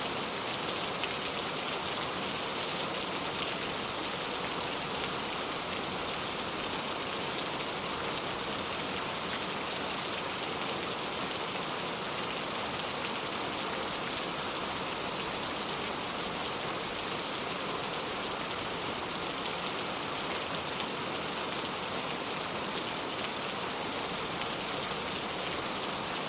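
Steady rainfall: an even hiss of rain with many fine ticks of drops striking a surface.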